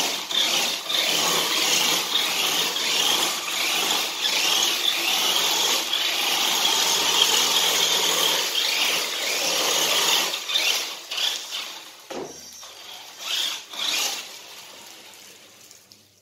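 Tamco Ranger toy RC truck driving on a tiled floor, its small electric motor and gears whirring and its sellotape-wrapped wheels sliding and spinning on the tiles. The sound runs steadily for about ten seconds, then comes in a few short bursts and fades out.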